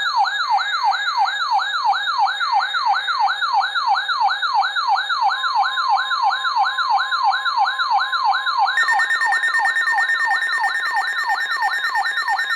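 Electronic siren-style alert tone: a fast warble of falling pitch sweeps, about three a second, with steady tones joining partway through. It sounds as the alert signal ahead of a severe thunderstorm warning broadcast.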